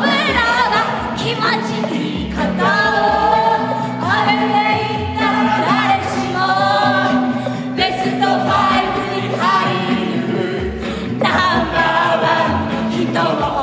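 A mixed group of men and women singing a song together in chorus over musical accompaniment, in phrases of a second or two each.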